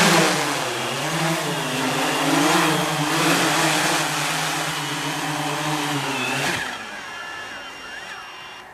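MikroKopter octocopter's eight electric motors and propellers buzzing as it flies in low and sets down on the lawn, the pitch wavering as the motors adjust. The buzz cuts off suddenly about six and a half seconds in as the motors stop after landing.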